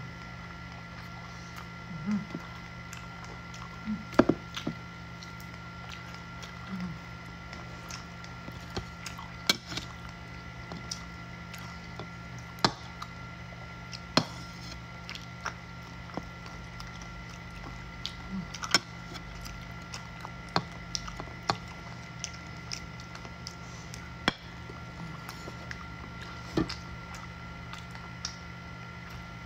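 Close-up eating sounds: chewing lechon roast pork, with scattered sharp crunches and smacks as the crispy skin is bitten, over a steady background hum.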